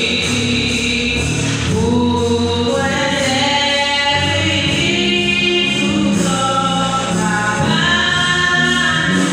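Gospel song: several voices singing held notes in harmony, the chord changing every second or so over a steady low accompaniment.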